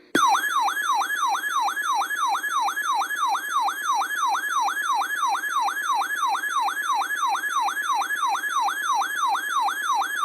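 Emergency Alert System attention tone: an electronic siren-like wail that sweeps quickly down and up, about three times a second, at a steady level. It signals that an alert message is about to follow.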